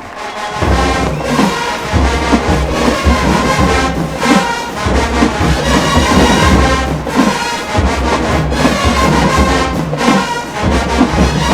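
Marching band brass and drums launching into a dance tune about half a second in, with horns playing over heavy low drums and sousaphones.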